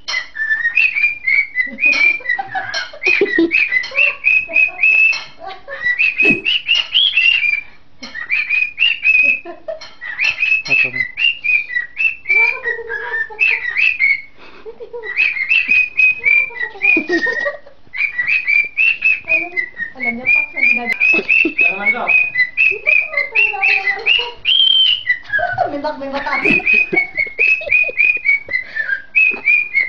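Cockatiel singing into a microphone: a long run of short, warbling whistles and chirps, broken by a few brief pauses.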